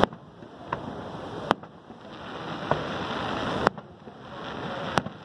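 Aerial firework shells bursting, about six sharp bangs a second or so apart, over the steady roar of Niagara Falls' falling water.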